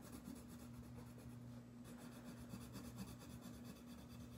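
Faint scratching of a coloured pencil on paper as a small area is filled in with hard pressure, over a steady low hum.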